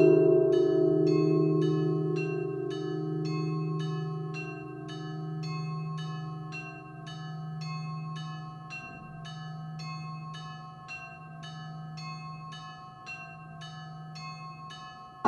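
Church bells: the deep tone of a large bell dies away slowly while smaller bells ring a quick, steady pattern of about two strikes a second.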